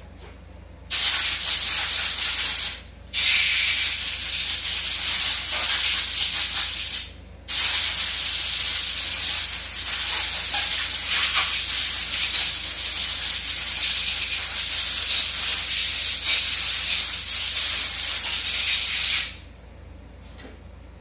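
Compressed-air blow gun from a shop compressor hissing in three blasts, blowing dirt off a part: a short blast about a second in, a second of about four seconds, then a long one of about twelve seconds that cuts off near the end.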